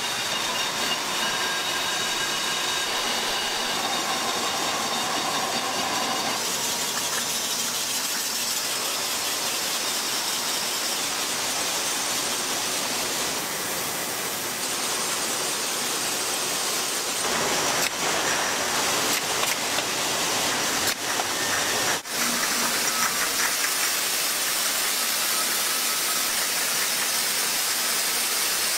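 Bottling-line machinery running: a steady hiss of conveyors and filling machines, with faint high whining tones during the first few seconds. The sound changes abruptly several times, with a sharp click about two-thirds of the way through.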